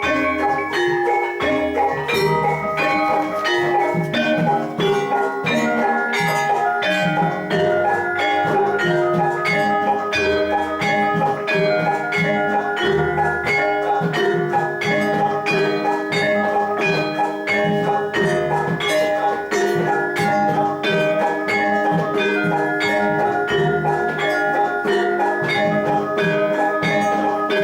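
Gamelan music for jathilan: ringing metal mallet instruments play held tones over evenly spaced percussive strokes, about two a second.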